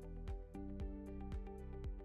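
Background music with a steady beat of about two thumps a second under held notes.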